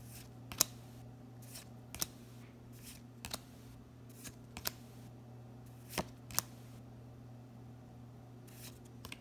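Dragon Ball Super trading cards being flipped through by hand, each card slid off the stack with a short, sharp flick at irregular moments, over a steady low hum.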